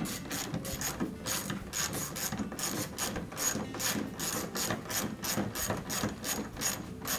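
3/8-inch socket ratchet clicking as its handle is swung back and forth, loosening the bolts of a refrigerator's top door hinge. The pawl clicks come in quick runs, several a second.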